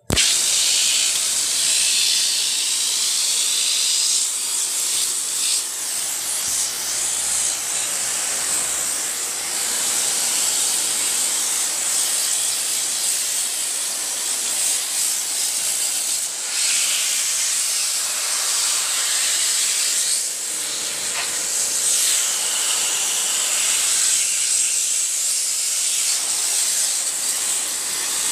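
A jet of water spraying onto the aluminium fins of a split-type air conditioner's indoor evaporator coil, a steady hiss with a few brief dips as the spray moves across the coil.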